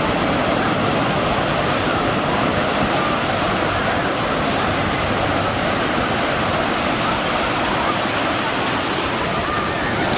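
Wave pool: a steady rush of churning water and breaking waves.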